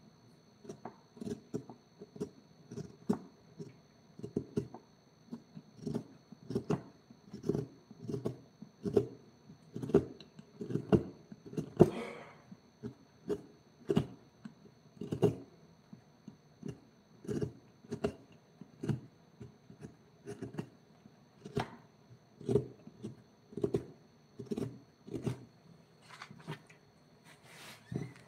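Mallet tapping a woodcarving chisel into wood: a long run of separate knocks, unevenly spaced at about one or two a second.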